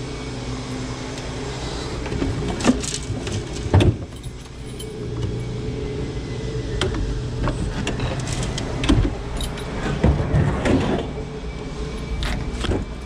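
Scattered sharp clicks and knocks as a scrapper works at the back of a dumped fridge, cutting off its mains cord with hand cutters, over a steady low hum.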